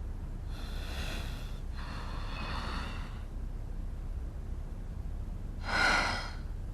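A person breathing heavily: three audible breaths, the last one the loudest, over a steady low rumble.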